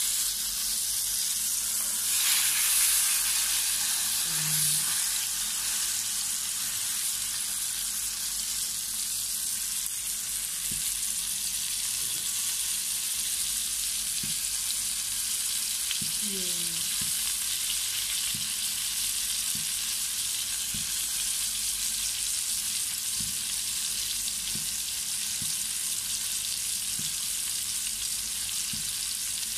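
Battered fish fillet sizzling steadily in hot oil in a frying pan over low heat, a little louder for a moment about two seconds in.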